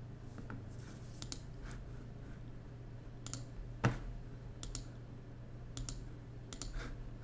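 Scattered clicks from a computer mouse and keyboard, about seven in all, with one louder click and thump a little under four seconds in, over a faint low hum.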